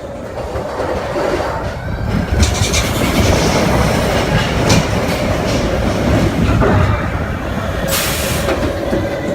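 Expedition Everest roller coaster train running along its track, with wheels rumbling and clacking, and a short hiss near the end.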